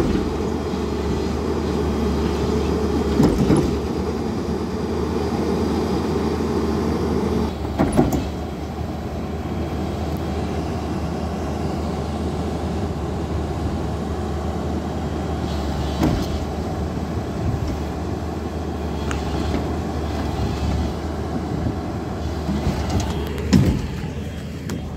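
Hyundai 210 Smart excavator's diesel engine running under load as the machine climbs onto a flatbed truck, working harder for the first several seconds and easing off about seven seconds in. A few short knocks are heard along the way.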